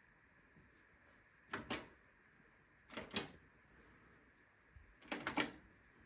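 Control-panel push buttons on an Arçelik 7103 Y washing machine clicking as options are selected and the cycle is started: three presses about a second and a half apart, each a quick double click, the last a short run of several clicks.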